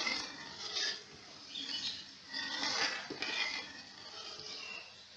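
A spoon stirring milk in a karahi, scraping and clinking against the pan in irregular strokes that grow fainter near the end.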